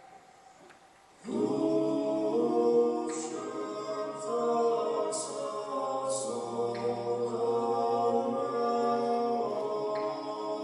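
An unaccompanied choir singing slow, sustained chords. It enters about a second in after a near-silent pause, with sung 's' consonants hissing through now and then.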